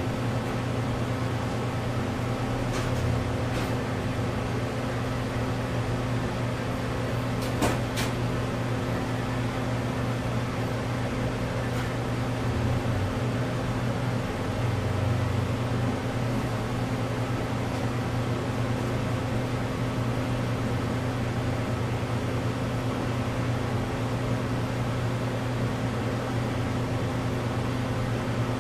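Steady low mechanical hum, with a few faint clicks about three seconds and eight seconds in.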